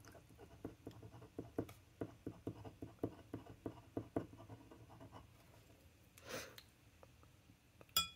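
Glass dip pen nib scratching across textured card stock in quick short strokes as small letters are written, for about the first five seconds. About six seconds in comes a soft breath, and near the end a light click.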